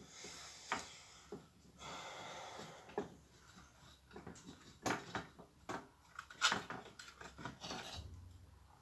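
Metal clicks, taps and scrapes of a hand tool working the muffler screws on a Homelite hedge trimmer engine, with a rasping scrape about two seconds in and a run of sharper clicks in the second half.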